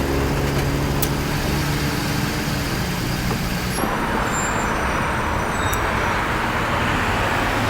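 A motor vehicle running, with a steady low engine hum and road noise. The hum fades a few seconds in, and the background changes abruptly shortly after.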